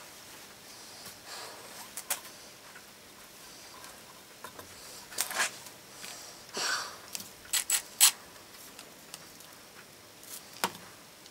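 Scattered sharp clicks and knocks from hands working a burl blank mounted on a lathe faceplate, among the metal tools beside it, with a quick cluster of three about eight seconds in.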